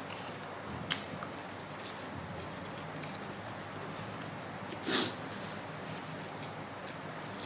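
A person eating instant noodles off a fork, with one loud slurp about five seconds in and a few short mouth clicks of chewing before it.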